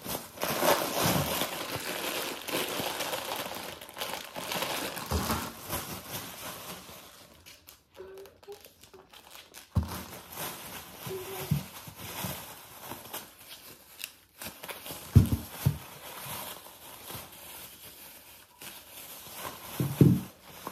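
Plastic shopping bag rustling and crinkling as it is handled, dense for the first several seconds and then in shorter bursts, with a few sharp knocks in the second half.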